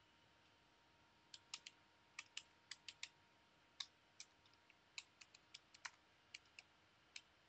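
Computer keyboard being typed on: a run of about twenty short, faint key clicks at an uneven pace, starting about a second in, with near silence between them.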